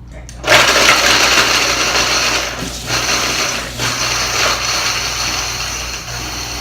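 Kitchen blender switched on about half a second in and running loudly while it grinds cookies into crumbs, with brief dips as the load shifts, easing off toward the end.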